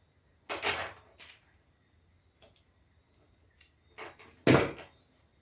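Handling sounds from stripping insulation off an electrical wire with a hand tool: a few short knocks and scrapes, the loudest about four and a half seconds in.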